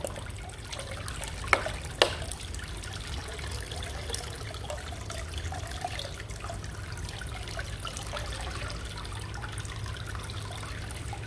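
Water running from a plastic pipe into a partly filled fish tank, with Indian almond leaf extract poured in from a plastic bottle: a steady splashing trickle as the tank is topped up after a salt soak. Two sharp clicks about one and a half and two seconds in.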